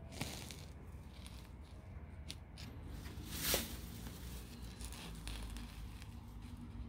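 Low rumble and faint rustling from a handheld phone being moved, with a few light clicks and a brief louder rush about halfway through.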